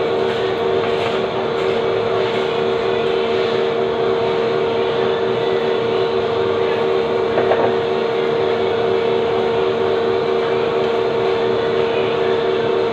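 Steady machine hum with a constant mid-pitched tone over a broad even noise, with a brief small knock about seven and a half seconds in.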